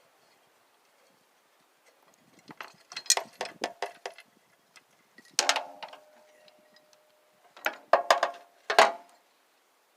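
Socket wrench ratcheting and loose metal parts clicking and clinking as bolts come off a lawn tractor's seat switch mount. About five and a half seconds in there is one sharp metallic clank that rings on for nearly two seconds.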